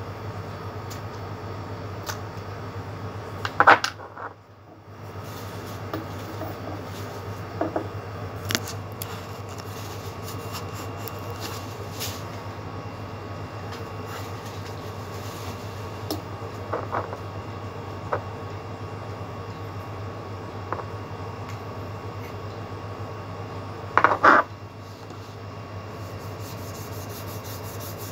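Paintbrush rubbing over paper, with a few short clicks and knocks on the wooden table, the loudest near the end, over a steady low hum.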